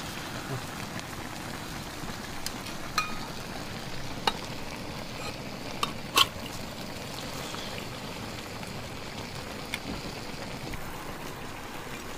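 A large wok of stew steadily sizzling and bubbling, with a metal spatula scraping and clinking against the wok as corn cakes baked on its side are pried off. A few sharp clinks stand out, the loudest about six seconds in.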